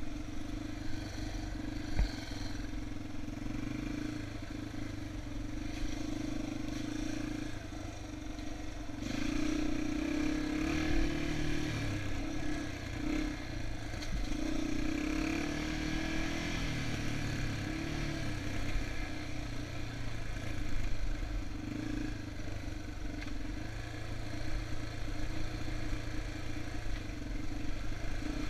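Yamaha TT-R230 trail bike's air-cooled single-cylinder four-stroke engine running under way on a dirt trail, rising and falling in pitch as the throttle opens and closes, loudest through the middle. A single sharp knock about two seconds in.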